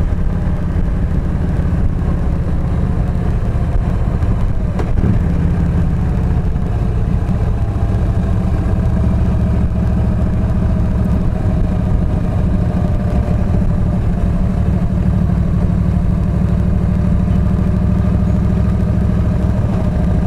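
Yamaha V Star 1300 V-twin engine running on the move, heard from on board the bike as a steady low rumble. There is a single short click about five seconds in.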